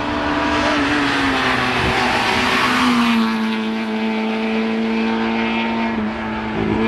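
Citroën Saxo VTS hillclimb car's four-cylinder engine running hard as it passes close, with a rush of road and exhaust noise over the first three seconds, then a steady high engine note as it pulls away.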